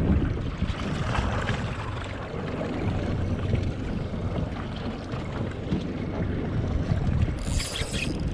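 Wind buffeting the microphone over the wash of open sea from a small boat, a steady gusty rumble. A brief hissing rustle comes near the end.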